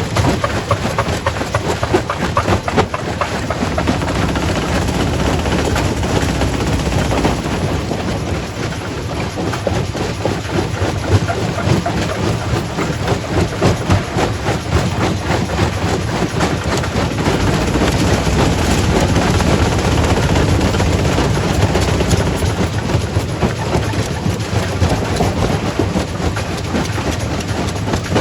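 Quarry primary rock crusher running under load, a steady heavy rumble with a dense, irregular clatter of rocks knocking and cracking as stone is broken.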